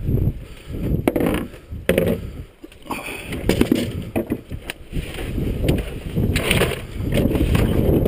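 Clunks, knocks and scrapes of hunting gear being loaded into a pickup's bed: a shotgun laid in and plastic coolers shifted. A steady low rumble runs underneath.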